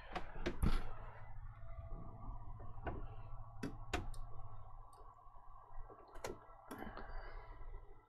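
Scattered light clicks and knocks, about eight at irregular intervals, from hands handling a PlayStation 4 Pro console and plugging in its power lead.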